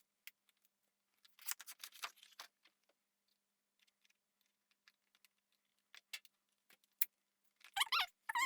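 Handling of a set of steel SDS Plus chisel bits and their case: a cluster of metallic clinks and rattles about a second and a half in, scattered single clicks, then short squeaky scrapes near the end.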